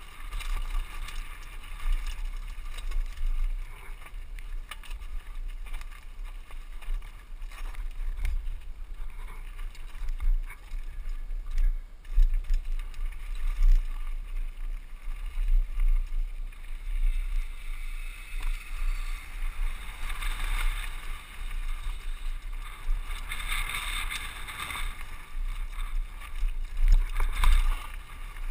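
A mountain bike rolling down a rocky, loose-gravel trail: tyres crunching over stones and the bike rattling, with a constant low wind rumble on the helmet camera's microphone. The noise grows louder and busier in the later part.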